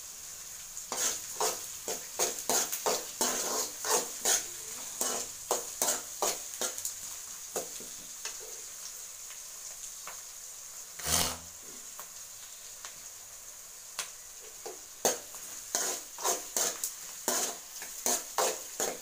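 Chopped onions and green chillies sizzling steadily in hot oil in an aluminium kadai, while a steel ladle stirs and scrapes against the pan in quick repeated strokes, from about a second in and again in the last few seconds. A single heavier knock of metal about eleven seconds in, with only the sizzle in between.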